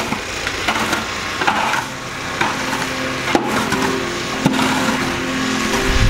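Plastic snow shovel scraping and scooping packed snow off a driveway, with several sharp knocks as the blade strikes the pavement. Music with held tones fades in over the second half.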